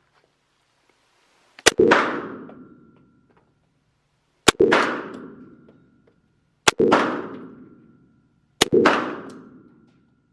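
Four single shots from a 9mm CF98 pistol, fired slowly a couple of seconds apart. Each sharp crack is followed by an echo that dies away over about a second, with a faint ringing tone.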